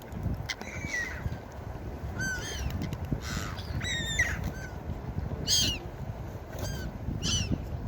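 Gulls calling: a series of short, harsh cries, several in quick runs, over a steady low rush of wind or surf.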